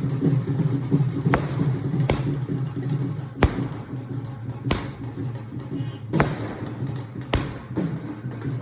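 Sky shot fireworks bursting: about six sharp bangs at uneven gaps of one to one and a half seconds, over a steady low hum.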